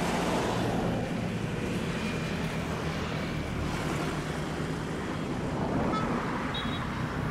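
Steady, distant low rumble of a Boeing 777F freighter's two GE90 turbofan engines on short final, just before touchdown.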